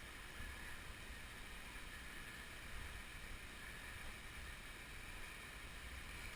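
Faint steady rushing noise with a low fluttering rumble of wind on the microphone.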